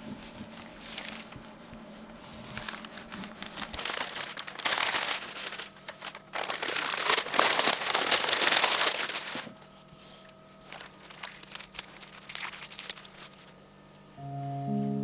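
Cling film and tissue paper crinkling and rustling as they are handled and peeled off a covered board, loudest through the middle. Piano music comes in near the end.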